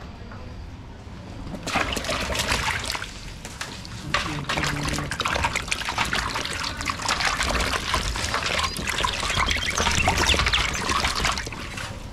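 Water splashing and trickling in a dense, irregular patter, starting about two seconds in, with a short lull around four seconds.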